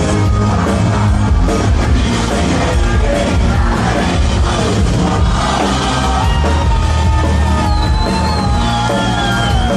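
A live rock band playing loud music with a steady beat. In the last few seconds a long held note wavers and slides slowly down in pitch.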